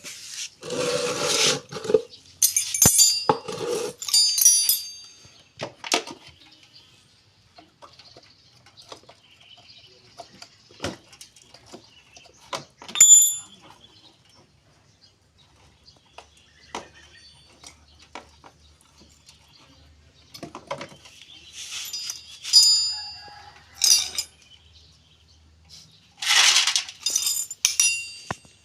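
Workshop repair work: metal parts and hand tools clinking and ringing, with scraping and scattered knocks at irregular intervals.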